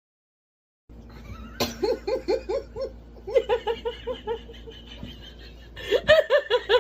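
About a second of silence, then a person laughing hard in quick, rhythmic bursts, about four or five a second, which grow louder near the end.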